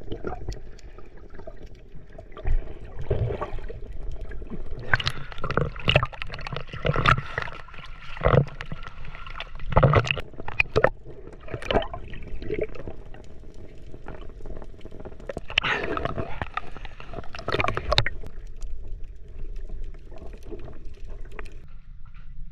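Underwater sound picked up by a submerged camera: gurgling and bubbling water with many sharp clicks and knocks, stopping abruptly near the end.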